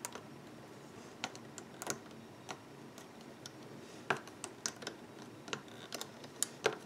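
Light, irregular clicks and taps of a metal loom hook and fingers against the clear plastic pegs of a loom-band board as rubber bands are lifted over, the loudest clicks about four seconds in and near the end.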